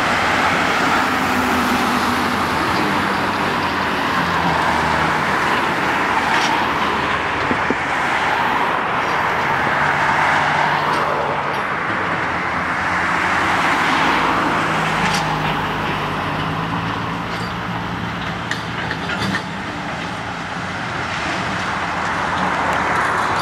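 Road traffic on a city street: cars and a van driving past, with tyre noise swelling and fading as each passes and engine hum rising and falling underneath.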